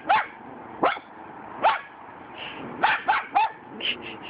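A small dog barking in short, sharp yaps, irregularly spaced, about seven in all, with a run of softer, quicker yips near the end.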